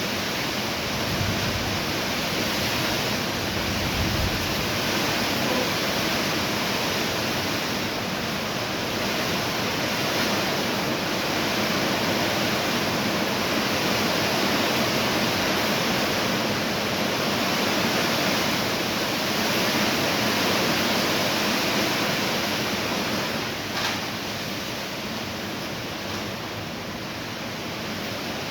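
A steady, even hiss with no words or distinct events, and a faint click about 24 seconds in.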